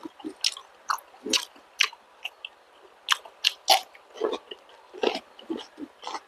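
Close-miked chewing and biting of balut (fertilized duck egg) with vegetables: a string of short, irregular mouth clicks and smacks, about two a second.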